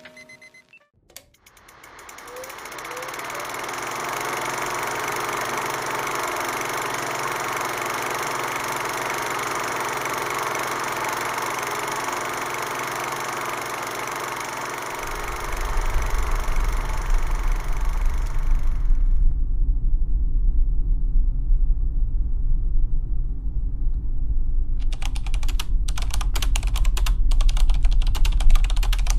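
A steady hiss fades in about two seconds in and stops about nineteen seconds in. From about fifteen seconds a deep, steady rumble of a Toyota Tacoma pickup driving, heard inside the cab, takes over. From about twenty-five seconds rapid keyboard-typing clicks come in, a typewriter-style sound effect for on-screen text being typed.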